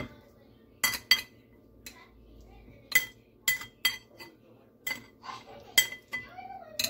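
Metal fork and knife clinking against a ceramic plate while cutting a slice of pie: about nine short, sharp clinks at uneven intervals, each with a brief ring.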